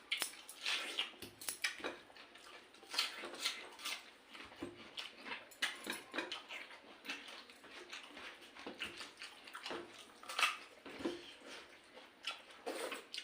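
Wet, irregular eating sounds: pakhala, cooked rice soaked in water, being mixed and scooped by hand and eaten, with many short squelches and smacks.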